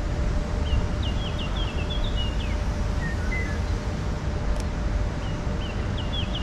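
A songbird sings a short, quick phrase of high chirps twice, about five seconds apart, with a shorter call in between, over a steady low rumble.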